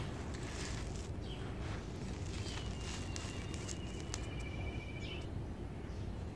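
Dry cement dust and gritty crumbs trickling and pattering from a hand onto loose rubble, with small scattered clicks of falling grit over a steady low rumble.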